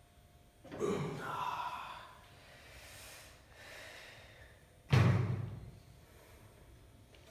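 A person's gasps and heavy breaths: one about a second in, softer ones after, and a sudden, louder one about five seconds in that fades over about a second.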